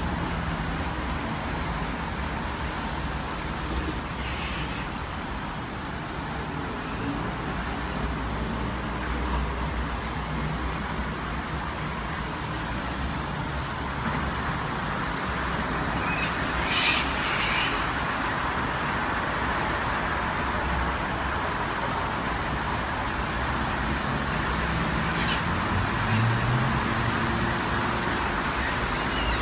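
Steady traffic-like rumble and hiss, with a few brief bird calls now and then; the clearest calls come a little past the middle.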